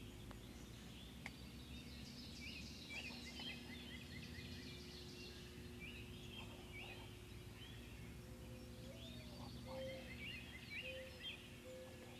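Wild turkey gobblers gobbling faintly, in clusters about two seconds in and again near the end, over a steady low hum.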